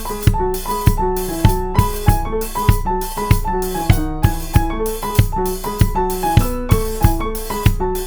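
Background music: a keyboard melody over a steady drum-kit beat.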